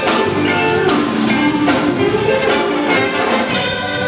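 Show-tune band music led by brass, an instrumental passage with no singing.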